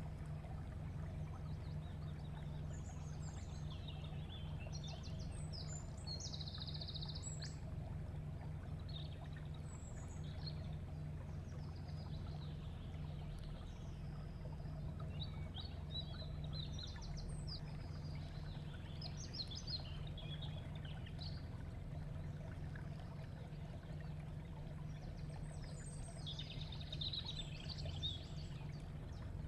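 Songbirds calling and singing in a swamp forest: scattered chirps and short trills, a busier run of calls near the end. Under them is a faint trickle of water and a steady low hum.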